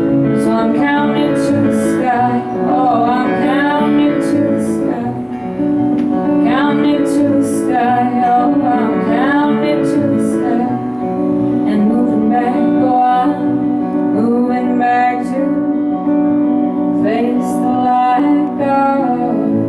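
A woman singing with gliding, drawn-out notes over a strummed acoustic guitar, in a live performance.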